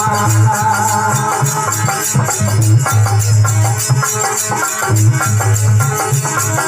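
Instrumental passage of a Rajasthani folk bhajan: a held melody over a steady drum beat and continuous hand percussion.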